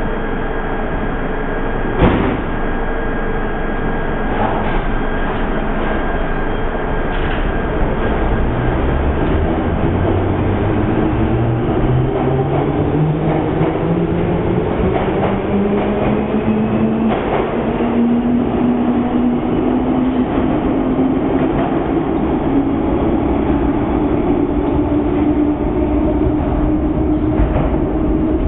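A 1967 Tube Stock underground train pulls out of a station and accelerates away. There is a sharp knock about two seconds in, then a whine that climbs steadily in pitch as the train gathers speed, over a constant rumble.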